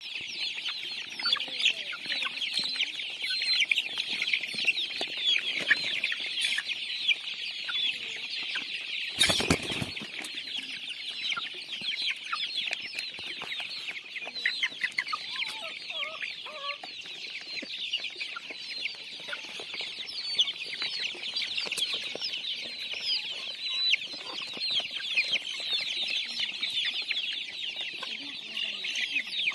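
A flock of young desi chickens and chicks cheeping continuously, many high peeps overlapping into a steady chorus with the odd cluck. A brief loud burst of noise cuts across it about nine seconds in.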